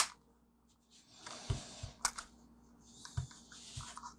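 Plastic pry tool scraping and clicking in the seam of an original iPhone's black plastic end cover as it is pried at: a few short scratchy scrapes with sharp clicks, the loudest click right at the start.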